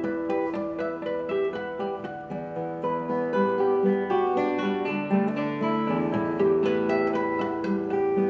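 Two nylon-string classical guitars playing together, a quick stream of plucked notes over held lower notes, growing louder about three seconds in.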